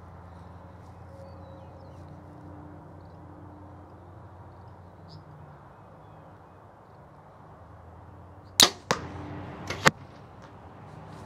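A Mathews V3X 29 compound bow is shot after a long quiet hold at full draw: a sharp, loud crack as the string is released about eight and a half seconds in, then a second sharp smack about a second later as the arrow strikes the target.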